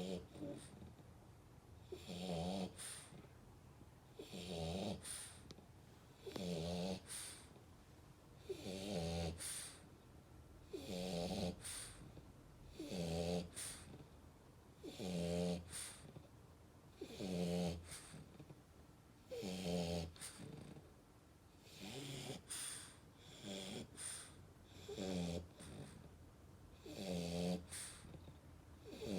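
Steady, rhythmic snoring, one snore about every two seconds. Each snore is a rasping, pitched breath with an airy hiss.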